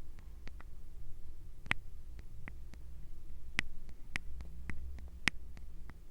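Close-miked ASMR trigger sounds: irregular light clicks and taps, about two or three a second and uneven in strength, over a faint low hum.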